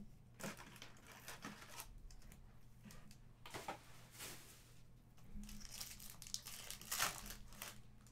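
Wrapped trading-card packs rustling and crinkling as they are handled and one is torn open, in several short bursts, the loudest about seven seconds in.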